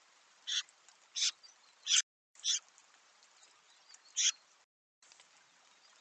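Eurasian jay at a seed-tray feeder, with five short harsh, scratchy sounds about half a second to two seconds apart over a faint hiss, sped up to double speed. The sound drops out for a moment near the end.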